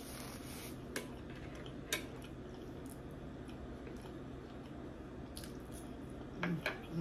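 Close-up eating sounds: faint chewing and mouth noises with a few soft clicks, then a short cluster of louder lip smacks near the end.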